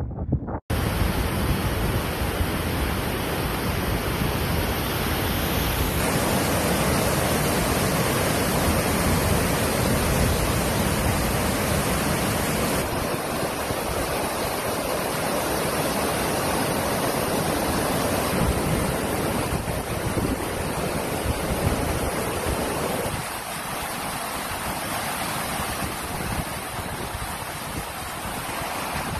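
Muddy flood water from heavy rain rushing and pouring over stepped rock ledges in a wadi: a steady, dense rush of falling water. It cuts in after a brief gap about half a second in.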